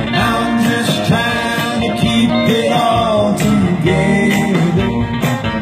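Live country band music: acoustic guitars strumming under male singing voices, playing on without a break.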